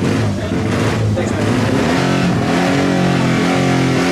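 Indian Four motorcycle's air-cooled inline four-cylinder engine running steadily, its pitch stepping up a little about two seconds in as it is revved.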